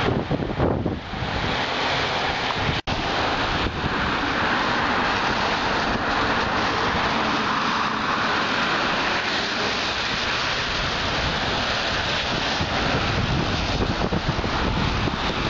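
Strong wind buffeting the microphone with a steady rushing noise, cut by a brief dropout about three seconds in.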